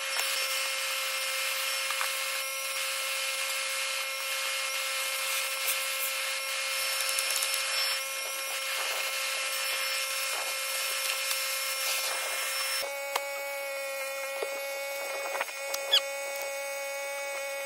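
Shop vacuum running with a steady motor whine and a rush of air as it sucks debris off a truck cab's floor. About 13 seconds in the rushing drops while the whine carries on, and a few sharp clicks follow as bits rattle up the hose.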